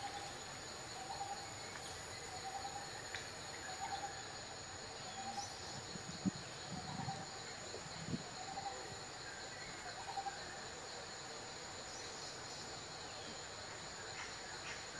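Steady high-pitched insect drone, with a short call repeated a little faster than once a second until about ten seconds in, and a few low thumps about six to eight seconds in.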